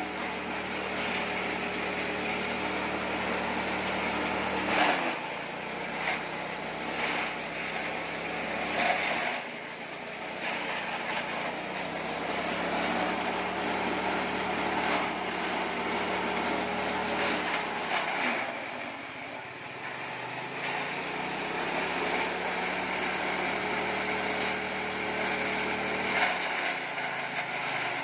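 Engine-driven grass chopper (chaff cutter) cutting Napier grass stalks for cattle feed. The engine runs steadily and its pitch sags several times as bundles are fed into the blades, then recovers, with the knock of stalks being cut.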